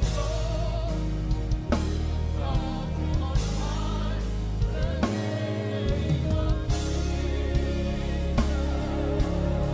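Gospel worship music from a band: drum kit, sustained bass notes and keys under a wavering sung melody, held at a steady level.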